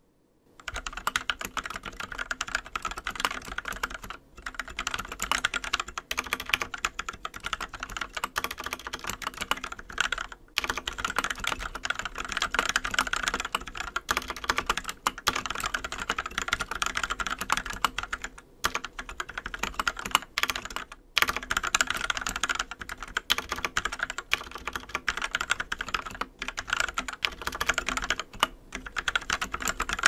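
Fast, continuous typing on a mechanical keyboard fitted with fully lubed Gateron Brown tactile switches: a dense run of key clicks, broken by a few brief pauses.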